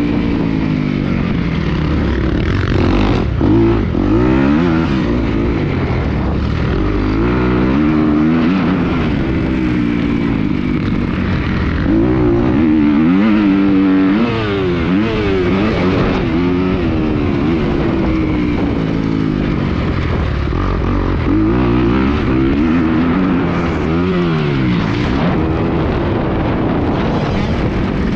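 Dirt bike engine on a motocross track, revving up and down as the rider works the throttle and shifts, its pitch climbing and falling every second or two.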